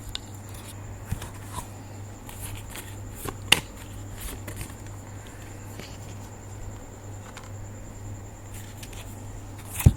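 Tarot cards being handled as an extra card is pulled: faint rustling with a few light taps and clicks, the sharpest about three and a half seconds in, over a steady low hum.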